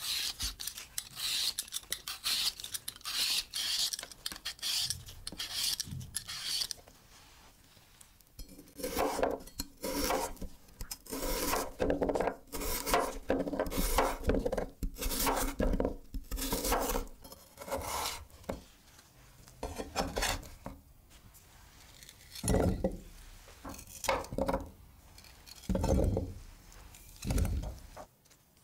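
A metal Y-peeler scraping the skin off a raw potato in quick repeated strokes. Then a chef's knife slices the potato on a wooden board, each cut crunching through and tapping the wood. A few dull thumps come near the end.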